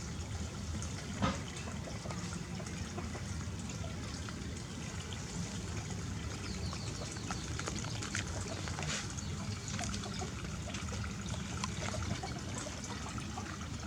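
Water trickling steadily, with faint scattered clicks and a single sharp knock about a second in.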